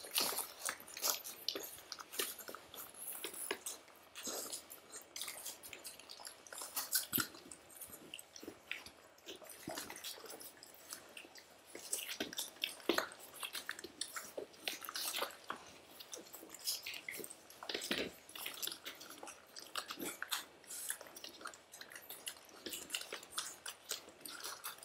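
Golden retriever puppies suckling at their mother, giving a run of irregular wet smacking and clicking sounds.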